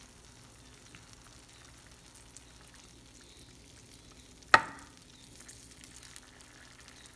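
Faint crackling sizzle from the hot juices of a freshly baked salmon fillet in a glass baking dish, with one sharp clink about four and a half seconds in as a knife meets the dish.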